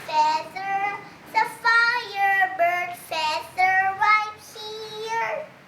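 A young girl singing a tune on her own, with no accompaniment, in a run of held notes that step up and down.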